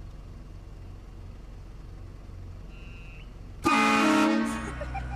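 Train horn blasting once, about three and a half seconds in: a short, loud chord of several notes that cuts in suddenly over a low, steady vehicle hum.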